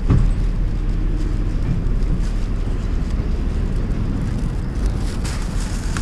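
Steady low rumble of road traffic and vehicles moving nearby.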